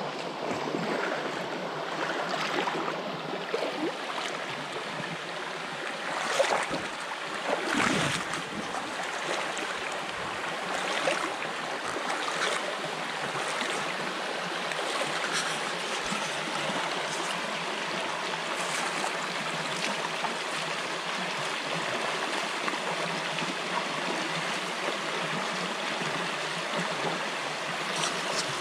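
Shallow creek running over rocks in a riffle: a steady rush of water, with a few brief louder splashes about six and eight seconds in.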